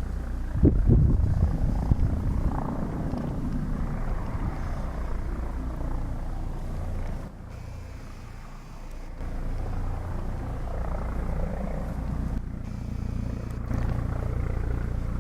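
Rescue helicopter running, a steady low rotor-and-engine drone. It is loudest about a second in, drops away briefly around the middle, then comes back up.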